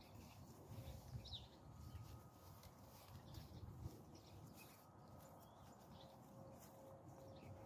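Near silence: a faint low wind rumble with a few faint bird chirps.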